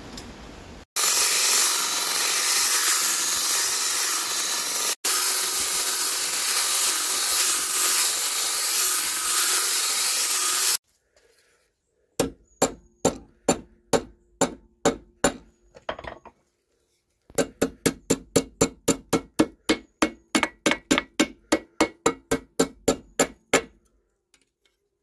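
About ten seconds of loud, steady rushing noise that stops abruptly, then a hammer striking red-hot steel on an anvil as the bar is bent over a bending jig: a run of blows, a short pause, then a faster run of about four blows a second, each with a short ring.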